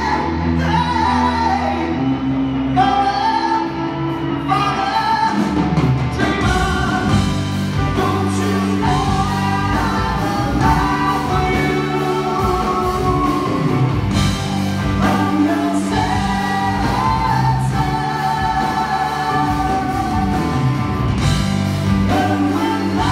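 Live rock band playing with a male lead singer singing into a microphone. The opening is quieter with held chords, and the drums and full band come in about six seconds in.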